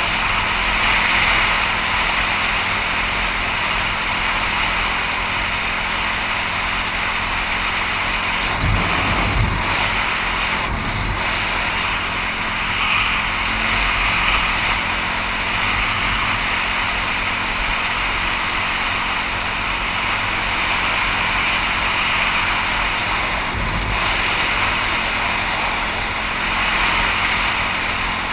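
Steady wind rushing over a helmet-mounted camera's microphone while riding a dirt bike at road speed, with the engine's steady drone faint beneath it and a few low buffets of wind near the middle.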